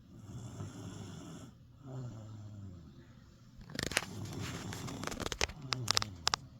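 A sleeping person snoring, low snores whose pitch falls, with breath noise between them. In the second half a run of sharp clicks and rustles is louder than the snoring.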